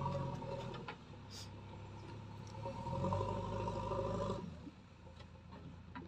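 JCB backhoe loader's diesel engine running under load, its note rising and falling twice: loud in the first second, easing off, rising again about three seconds in and dropping back a little before the end.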